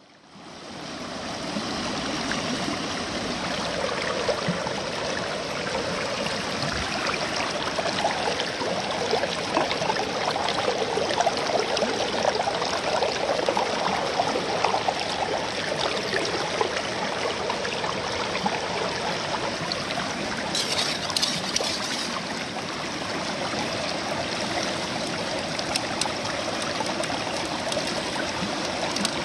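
Shallow river rapids running over rocks, with water pouring steadily through a gold-prospecting sluice box set in the current. The flow fades in at the start and otherwise stays even.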